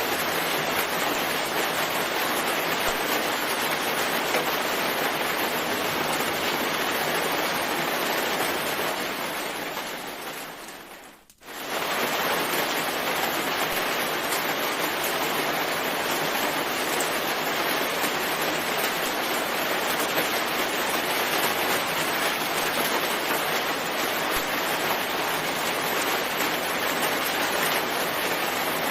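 Steady rain, an even hiss. About ten seconds in it fades out to near silence, then comes back abruptly at full level, like a looped recording restarting.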